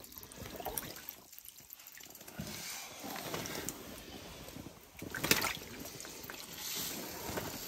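Water sloshing and splashing in an ice-fishing hole as a freshly landed lake trout thrashes and a hand works in the slushy water, with a sharper splash about five seconds in.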